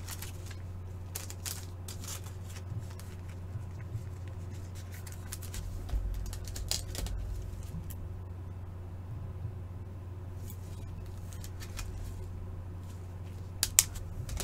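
Hockey trading cards being handled and flipped through: scattered light clicks and rustles, with a couple of sharper clicks near the end, over a steady low hum.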